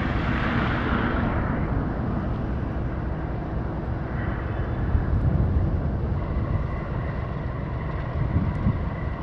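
Steady low rumble of ship engines passing on the canal, with a brief hiss in the first second or so.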